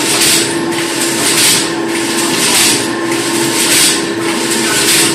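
Wire mesh weaving loom running: a rhythmic swishing stroke about once a second over a steady machine hum.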